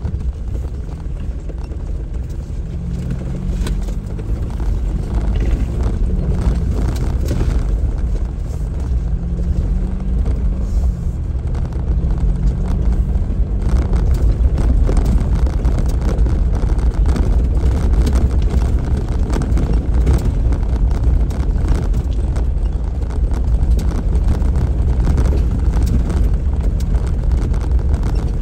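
A 4x4 vehicle crawling over a rough trail: a steady low engine drone whose pitch rises and falls, with frequent knocks and rattles.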